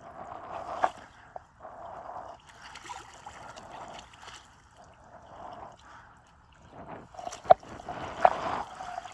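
A hooked brown trout splashing and thrashing at the surface of shallow creek water as it is drawn to the bank and scooped into a landing net. Water sloshes on and off, with sharp splashes near the end, the loudest about seven and a half seconds in.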